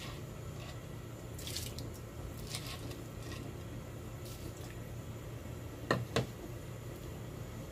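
Soaked rice tipped into a pot of hot water with soft splashes, then a ladle stirring and knocking twice against the pot about six seconds in, over a steady low hum.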